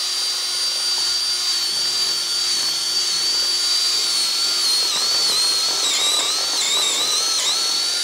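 JPT 21 V brushless cordless drill running at high speed with a cone bit, a steady high motor whine. From about halfway the pitch dips several times as the bit cuts into a PVC sheet under load.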